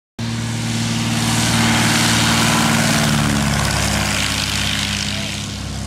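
Single-engine light propeller plane's engine and propeller running at takeoff power on its takeoff roll across a dirt field, a steady drone that grows loudest as it passes close and then slowly fades as it moves away.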